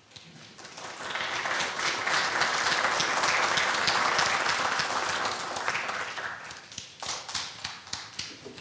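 Audience applauding. The clapping builds over the first second, holds, and dies away about seven seconds in, leaving a few scattered claps.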